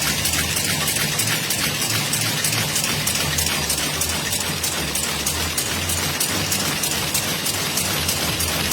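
HLP 200 round-corner cigarette machine running steadily: a dense mechanical clatter with a regular clicking of about three to four clicks a second.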